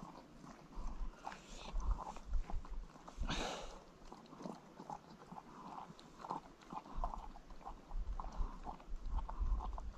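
Kangal shepherd dog licking the last of the raw egg white from a bowl: quick, irregular wet licks and small taps against the bowl, with one short breathy burst about three and a half seconds in.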